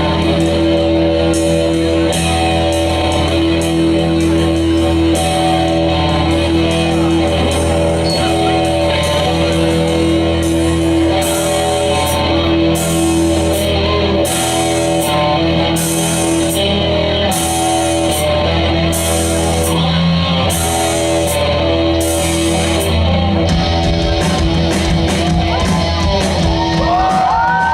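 Rock band playing, with guitar and vocals, a steady high cymbal-like beat that drops out about 23 seconds in, and sliding notes near the end.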